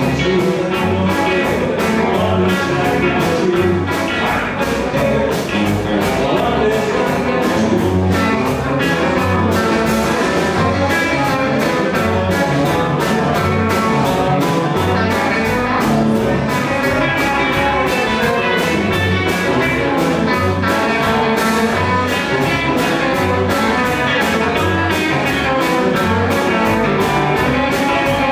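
A live band playing with two electric guitars, an upright double bass and drums keeping a steady beat.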